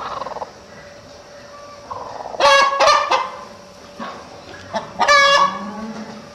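Broody hen sitting on kittens, giving loud harsh squawking calls: two in quick succession about two and a half seconds in, and another about five seconds in.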